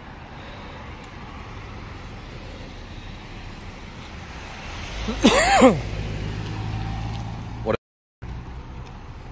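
Road traffic and vehicle engines running. About five seconds in comes a brief loud tone that rises and falls in pitch, followed by a low steady hum. The sound drops out briefly near the end.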